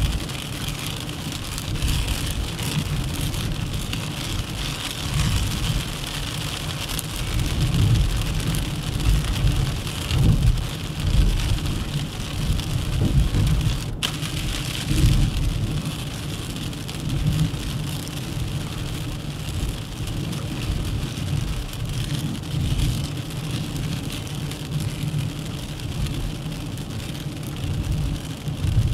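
Steady noise of a Dacia Duster 1.3 TCe 4x4 driving on the road: tyre and wind hiss over a low rumble that swells and dips, with a single sharp click about halfway through.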